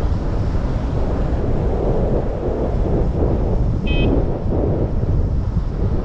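Wind noise buffeting the camera microphone while riding an electric scooter at speed, a steady low rumble. A short high beep about four seconds in.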